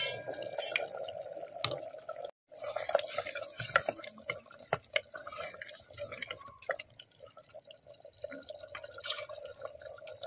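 Taro-root tamarind stew simmering in a pan, bubbling with many small irregular pops and plops.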